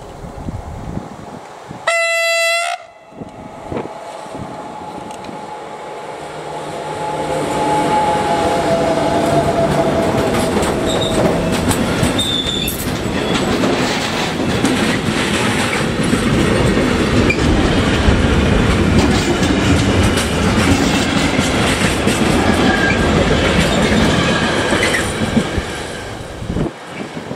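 A DB class 145 electric locomotive sounds one short horn blast about two seconds in. Its freight train of tank wagons and tank containers then rolls past, loud and steady, the wheels clattering over the rail joints. It fades near the end.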